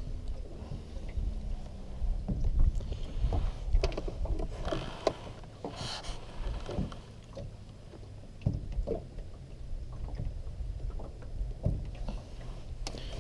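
Handling noise close to the microphone: clothing brushing over it and scattered small knocks and clicks as a crappie is taken out of a landing net and the hook is re-baited, over a steady low rumble of wind on the microphone.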